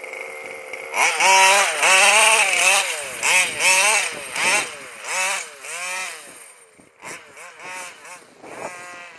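29cc Zenoah two-stroke engine of a Losi DBXL 1/5-scale RC buggy idling, then from about a second in revving hard again and again, its pitch rising and falling with each blip of throttle. It gets quieter as the buggy drives away.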